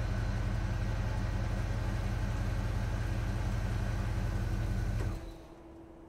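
Huina remote-control excavator running with a steady low mechanical drone as its arm moves. The drone starts abruptly, runs about five seconds and cuts off suddenly, leaving a fainter steady hum.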